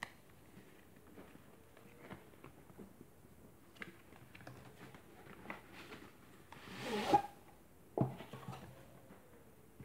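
Cardboard packaging of a GoPro HERO9 Black being opened by hand: light rustles and clicks from the sleeve and flaps, then a louder scraping slide about seven seconds in as the hard case comes out of the box, and a knock about a second later.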